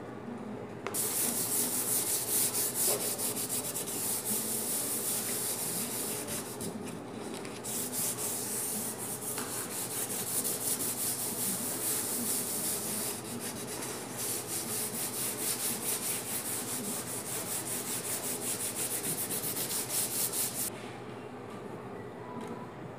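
A sheet of 3M sandpaper is rubbed by hand over a plastic car dashboard pad in quick back-and-forth strokes, scuff-sanding it for paint. It starts about a second in, pauses briefly around seven seconds, and stops near the end.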